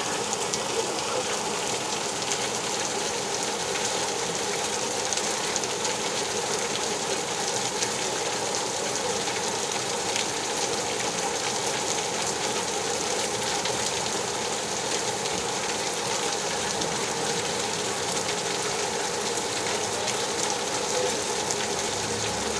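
Steady rain falling at an even level, with many small drop impacts.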